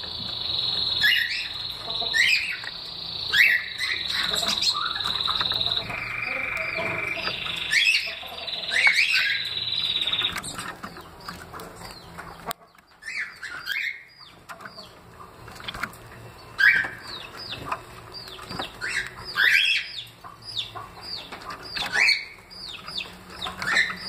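Caged Bengalese finches (manons) giving many short, high chirping calls, sparser in the second half. A steady high tone sounds through the first half, stopping about ten seconds in.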